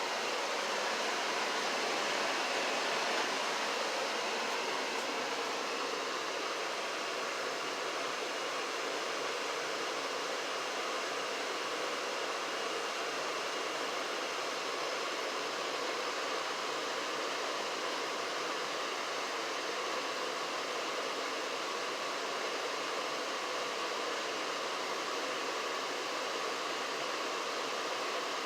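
Janitrol furnace running: a steady rush of air with a faint hum in it, slightly louder for the first few seconds.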